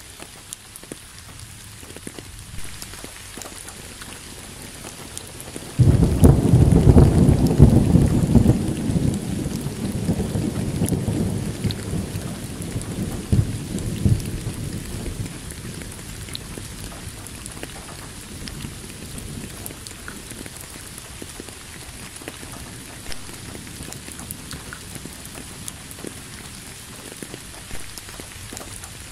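Steady rain, with a loud rumble of thunder that starts suddenly about six seconds in and fades away over roughly ten seconds.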